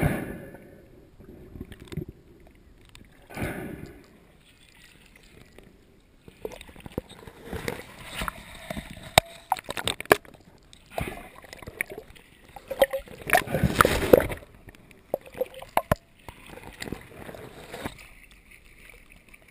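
Lake water sloshing, gurgling and splashing around a GoPro camera's sealed underwater housing as it moves below and back up through the surface, heard through the housing. Irregular bursts with a few sharp knocks, and a louder stretch of splashing about two-thirds of the way through.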